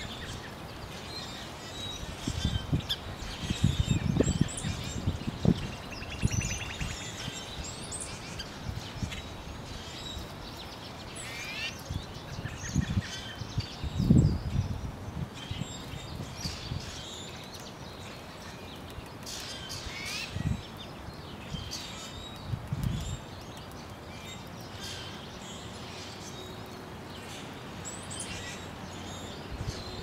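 Small songbirds chirping and singing with short, high calls and trills throughout. Irregular low rumbling thumps come through, the loudest about halfway.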